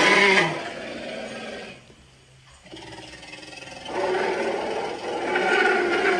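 Sound-effect calls for the sauropod dinosaur Sauroposeidon, built to sound like a large animal's call. One call ends about half a second in and fades away. A second call starts around four seconds in and grows louder.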